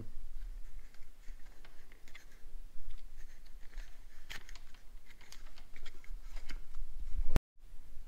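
Scattered small clicks, creaks and rubbing as a rubber grommet is pressed and squeezed into a hole in a plastic housing by hand, over a steady low hum. Near the end a sharp click and the sound cuts out for a moment.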